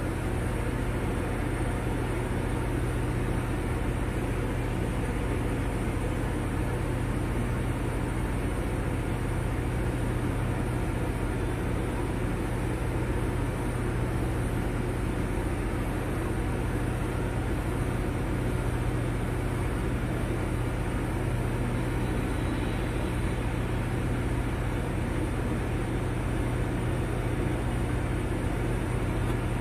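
Steady low machine hum under an even broad hiss, holding one level throughout with no breaks or knocks.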